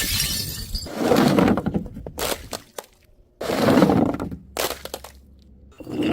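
Glass bottles and jars dropped and breaking: about four separate crashes, a second or so apart, then a quieter stretch near the end.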